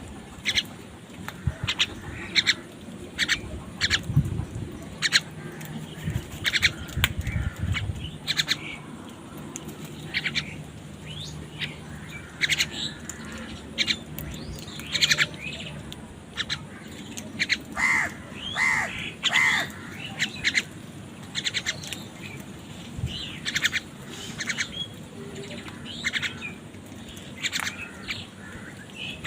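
Several crows cawing and squawking over one another, short harsh calls coming several a second, with a burst of louder caws about two-thirds of the way through. A faint low hum runs underneath.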